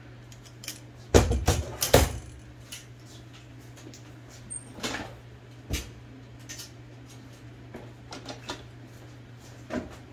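Scattered clicks and knocks of small metal typewriter parts, a replacement guide gear among them, being handled and fitted, the loudest two about a second apart near the start, over a steady low hum.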